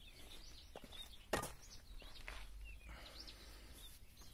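A spade digging into damp soil, with one sharp strike of the blade about a second in and a few softer ones. Small birds chirp in the background.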